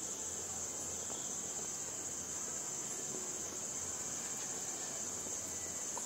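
Crickets trilling in a steady, unbroken high-pitched chorus.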